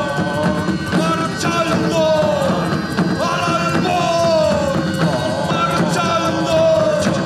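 A band playing live, with a lead voice or melody instrument whose phrases slide downward in pitch over a steady low accompaniment.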